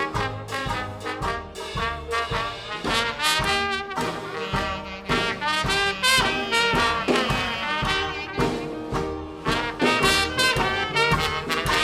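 A live traditional jazz band plays a Dixieland-style swing number, with brass horns carrying the melody over a steady bass pulse.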